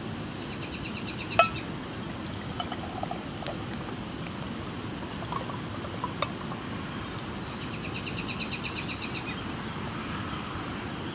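Mead being poured from a glass bottle into a stainless steel cup. A sharp clink sounds about a second and a half in, and a few light taps follow in the middle.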